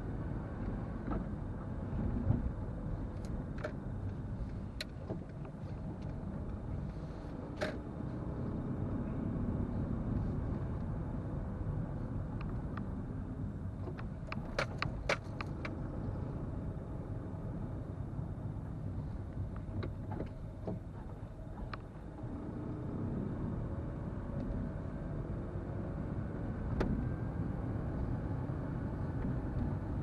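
Car being driven, a steady low rumble of engine and tyres, with a few scattered sharp clicks and a quick run of clicks about halfway through.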